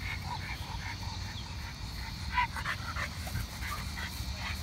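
Two dogs playing on leashes, giving short breathy sounds, with scuffling over a low steady rumble.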